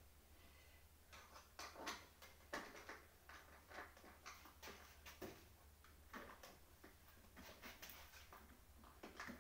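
Faint, irregular clicks and light knocks of hand repair work on an office chair, from tools and metal fittings being handled at its underside, starting about a second in.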